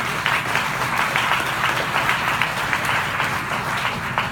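Audience applauding, a dense run of many handclaps that thins to fewer, separate claps near the end.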